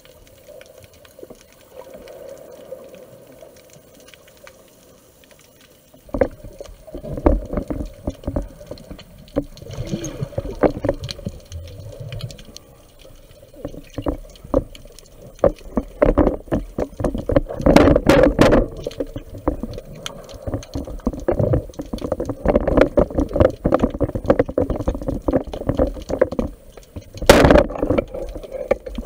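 Underwater water noise on a speargun-mounted camera: gurgling and sloshing water with many irregular knocks and clicks against the housing. It is fairly quiet for the first six seconds, then becomes busier and louder, with one sharp knock near the end.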